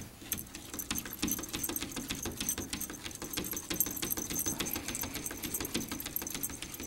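A cat's paw batting rapidly at a glass door pane: quick irregular taps and clicks, several a second, with claws scraping on the glass.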